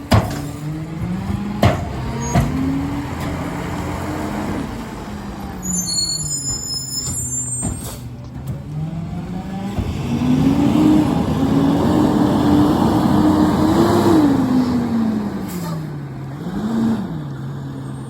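Diesel engine of a Freightliner garbage truck with a McNeilus rear-loader body, revving up and settling back twice, the longer rise about ten seconds in lasting some four seconds. A few sharp knocks near the start and a brief high squeal around six seconds in.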